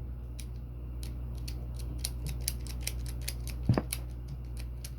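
A quick run of small, sharp plastic clicks from Beyblade top parts being handled and snapped or twisted together, with one louder click a little before the end.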